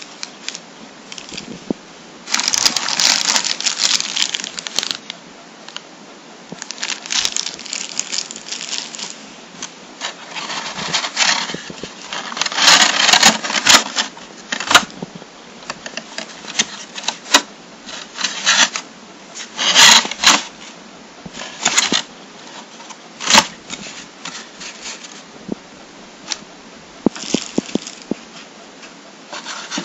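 Clear plastic packaging bag crinkling and a cardboard box being handled. The sound comes in irregular bursts of rustling a second or two long, with sharp clicks and taps between them.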